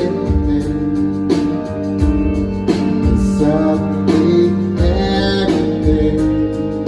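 Live band playing a pop-soul song: a male lead vocal over keyboards, electric guitars, bass and drums, heard from the audience in a large hall.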